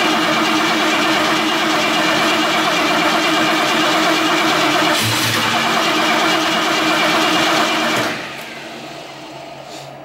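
Classic Ford Mustang's carbureted V8 running just after starting, now that the old distributor has been refitted to cure a no-start. It runs loud and steady, then drops sharply to a much quieter run about eight seconds in.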